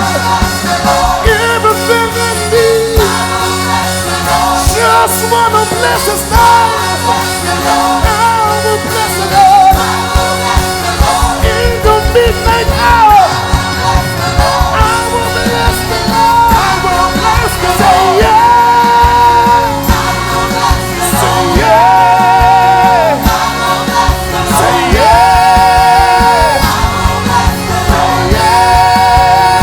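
Live gospel worship music: a full band with drums playing under a singer who holds long, wavering notes, several of them in the second half.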